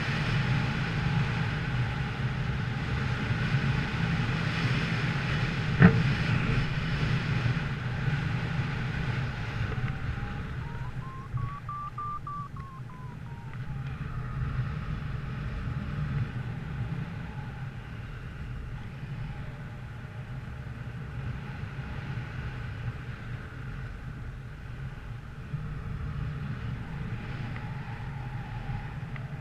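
A motor vehicle running with a steady low rumble under a rushing noise, with a sharp click about six seconds in and a faint whine that rises and falls about midway through.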